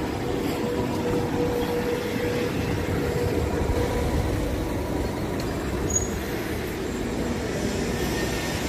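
Steady outdoor street ambience: an even low rumble, with a faint steady hum over the first two seconds or so.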